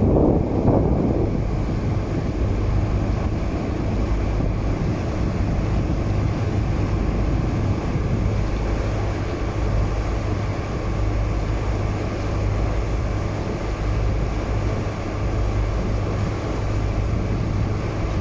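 Steady low drone of a tour boat's engine, with wind noise on the microphone, loudest in the first second.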